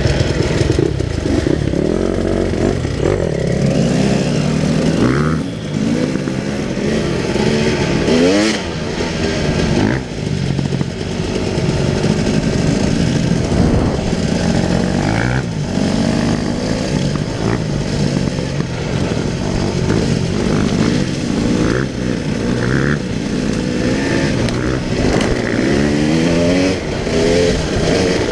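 Enduro dirt bike engine, heard from on board while riding, revving up and down through the gears: the pitch climbs again and again and drops back at each shift or throttle lift, with brief dips about five and ten seconds in.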